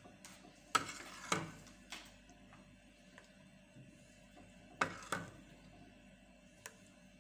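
Kitchenware knocking and clinking, likely the portioning of the soup: two pairs of sharp knocks with a short ring, about a second in and again about five seconds in, and a light tick near the end.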